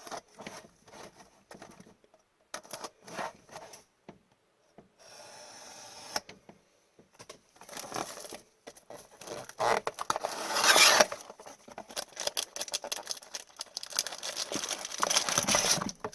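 A sealed box of hockey cards being unwrapped and opened by hand: the plastic shrink wrap crinkles and tears, with cardboard scraping and handling clicks. The crinkling is loudest about ten seconds in and again near the end.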